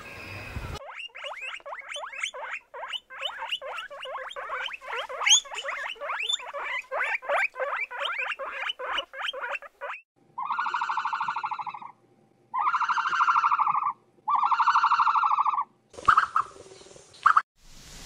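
Animal calls: a fast run of many short squeaky chirps, then three long buzzy calls with short gaps between them.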